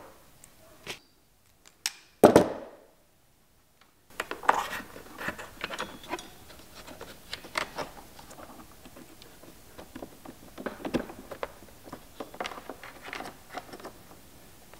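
Hands working electrical wiring: one louder knock about two seconds in, then a run of small clicks, scrapes and rustles as crimped wire connectors and cables are pushed into place inside a plastic case.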